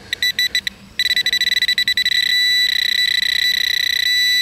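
Handheld metal-detecting pinpointer probe beeping in rapid pulses that merge into a steady high tone about two seconds in, the signal that its tip is right on a metal target.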